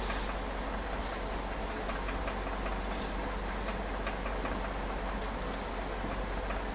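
Harris 50-3 oxy-acetylene welding torch flame burning steadily while welding thin aluminum, with a few faint crackles.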